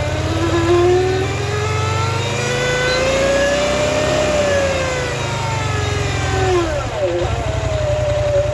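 Polaris Scrambler XP 1000 S ATV's twin-cylinder engine revved slowly up from idle and back down. A whine rises in pitch with the revs, peaks about four seconds in, and drops back to idle about seven seconds in. This is the noise the owner calls weird.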